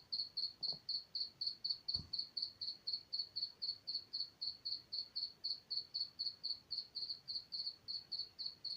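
A cricket chirping in a steady, even rhythm of short high-pitched chirps, about four a second.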